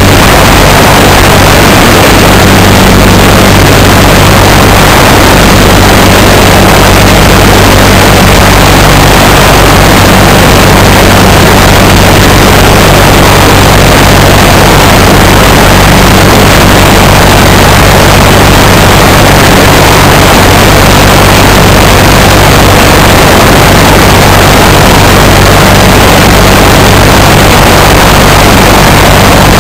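Legal Eagle ultralight's engine and propeller running steadily in cruise flight, very loud and close, under a constant rush of air noise.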